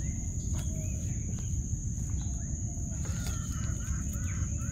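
Birds chirping in short calls over a steady, thin, high-pitched insect drone, with a loud low rumbling noise underneath.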